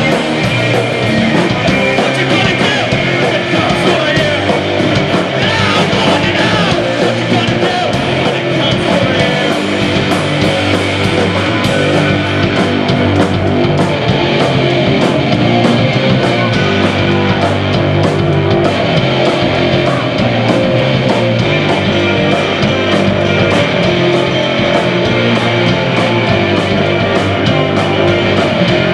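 Post-punk band playing live: electric guitars, bass guitar and drums, loud and dense, over a steady drum beat.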